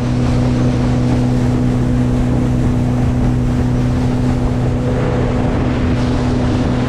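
Boat motor running at a steady speed while the boat is under way, with wind and water noise over it.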